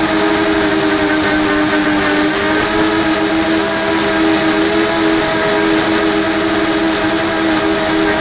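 Brushless motors and propellers of an FPV racing drone, heard through its onboard camera: a steady buzzing whine made of several close pitches that drift slightly against each other, over a hiss of rushing air.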